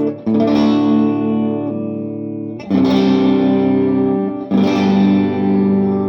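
Electric guitar chords on a Japanese Fender Telecaster, both pickups on, through a Vox AC15 amp with a linear power booster pedal turned part way up. Three chords are struck about two seconds apart, each left to ring.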